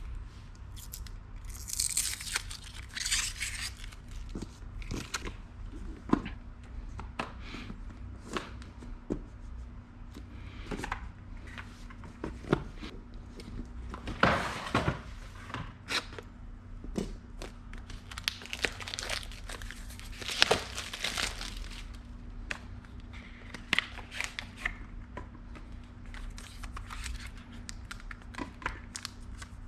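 Packaging being handled and opened by hand: crinkling and tearing in several bursts, with small clicks and knocks in between.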